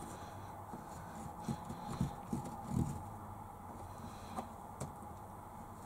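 Faint, irregular taps and knocks from hands, a pencil and a socket plate against a carpet-lined van wall while the socket position is marked out, over a low steady hum.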